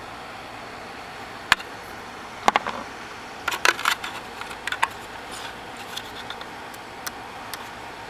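Irregular light clicks and taps as a vacuum cleaner's brush roll is turned by hand, the knot in its sewn and glued repair belt catching on the plastic housing. A steady faint hiss lies underneath.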